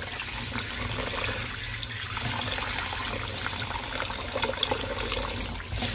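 Tap water running steadily and splashing onto a bowl of salt-cured perilla leaves as a hand rubs and rinses them.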